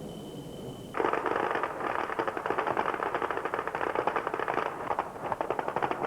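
A string of firecrackers going off in a rapid, dense crackle that starts suddenly about a second in and thins briefly near five seconds before carrying on.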